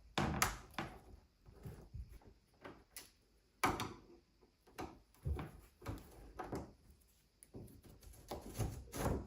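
Irregular knocks and clunks of smart-lock hardware being handled and fitted against a door, with a sharper knock about a third of the way in and a cluster near the end.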